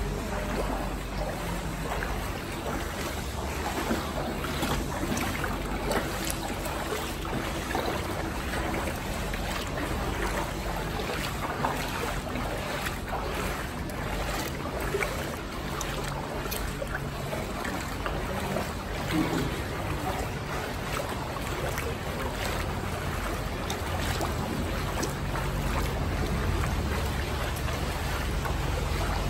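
Feet wading through ankle-deep floodwater, with water sloshing and splashing at each step.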